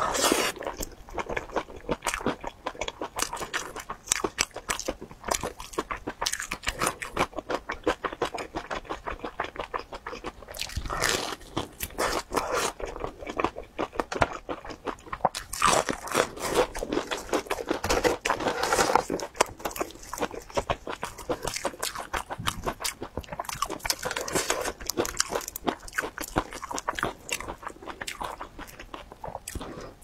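Close-miked crunching and chewing of a crumb-coated fried chicken cutlet: a dense run of quick, crisp bites and chews, heavier for a few seconds now and then.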